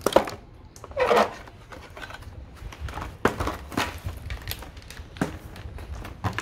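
Toy packaging being cut open and handled: sharp clicks of scissors on plastic ties and cardboard, and a short crinkling burst about a second in, followed by scattered knocks as the box is handled.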